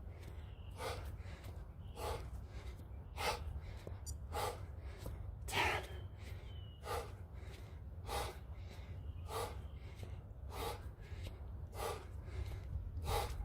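A man breathing hard during a jumping exercise: sharp rhythmic exhales about once every 1.2 seconds, the panting of heavy exertion. A steady low hum runs underneath.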